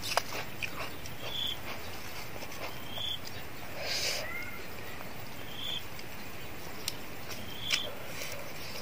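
A short, high chirp from a small creature, repeating every couple of seconds over faint steady background noise, with a few small clicks in between.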